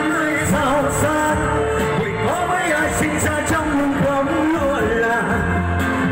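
A man singing a Vietnamese pop song live into a microphone over loud, amplified backing music through PA speakers.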